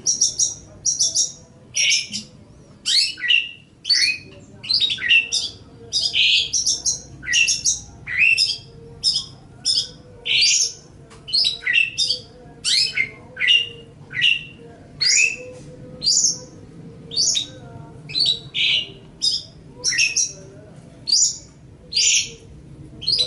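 Long-tailed shrike (cendet) singing: an unbroken run of short, high, scratchy notes, most sweeping down in pitch, about two a second, over a faint steady hum.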